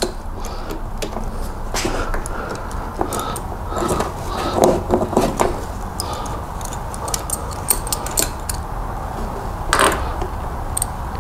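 Irregular metallic clicks and clinks of a wrench working the 14 mm drain plug loose and out of the bottom of an IAME X30 kart engine's crankcase, with a cluster of clicks in the middle and one sharper clink near the end. A steady low hum runs underneath.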